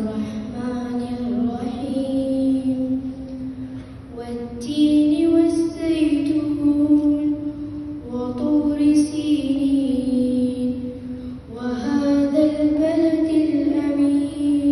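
A boy reciting the Quran in a melodic, chanted style (tajweed) into a handheld microphone, his voice amplified. Long phrases of held, gliding notes, with short breaths between them about four, eight and a half and eleven and a half seconds in.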